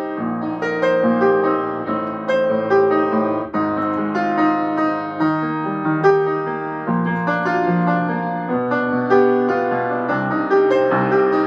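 Upright piano played, a steady flow of melody notes over chords, several notes sounding together with fresh notes struck every fraction of a second.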